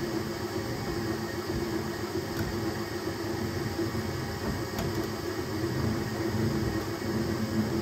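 Enclosed 3D printer running at high speed on the final layers of a print: a steady mechanical hum of its fans and motors.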